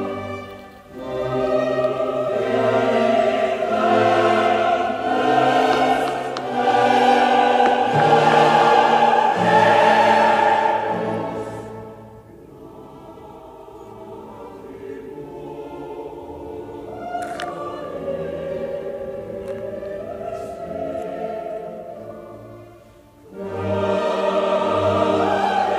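Solemn classical choral music, a choir singing over an orchestra. It is loud for the first half, drops to a softer passage about halfway through, and swells again near the end.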